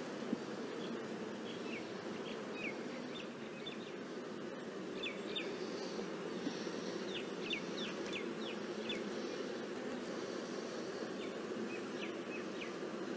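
Swarm of honeybees humming steadily over an opened hive's brood frames, with short high chirps scattered through it.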